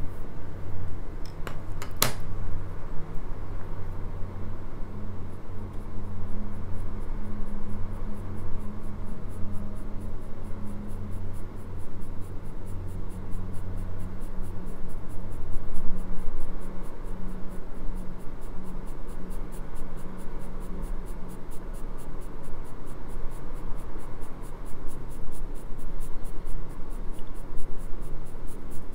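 Graphite pencil scratching and rubbing on drawing paper while shading, with one sharp click about two seconds in. A low steady hum runs underneath.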